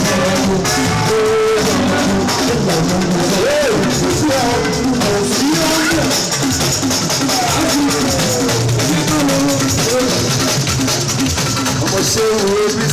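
Live fuji band music through a PA: drums and guitar, with a man's voice singing into the microphone over them.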